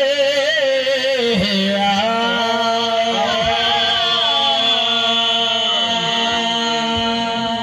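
Sufi devotional singing in Punjabi: a voice holds long, wavering notes with slow melodic turns over a steady accompanying drone.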